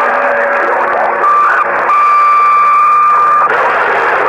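Radio receiver static heard through the set's speaker, with a steady whistle from a carrier on the channel. The whistle breaks off about a second in, comes back, and stops about three and a half seconds in, while the hiss carries on.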